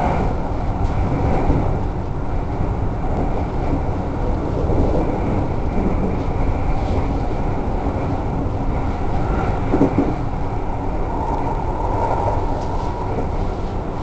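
Keikyu Line electric train running at speed, heard from inside a passenger car: a steady rumble of wheels on rail, with a faint whine near the start and again near the end, and a single clack about ten seconds in.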